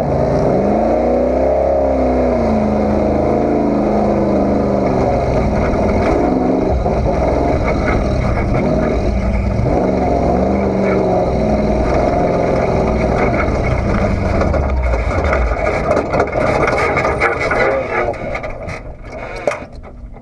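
Off-road race truck's engine running hard, its pitch climbing and falling repeatedly as it revs up and down over a constant rushing noise; it fades away near the end.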